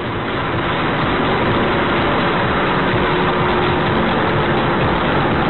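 Car driving, its engine and road noise a steady loud rush, picked up by a dashcam microphone inside the cabin.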